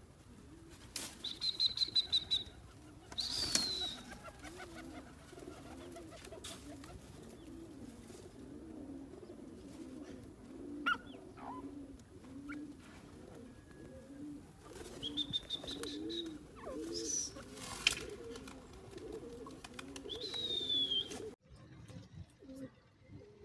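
Grey francolins calling: short high whistled notes, some trilled and some falling in pitch, come every few seconds over a low, rolling cooing that repeats about twice a second. The sound drops off abruptly near the end.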